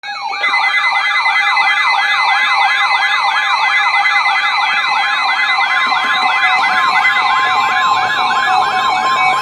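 Electronic emergency alert siren tone, warbling rapidly up and down about three times a second over steady electronic tones. A further steady tone joins about seven seconds in.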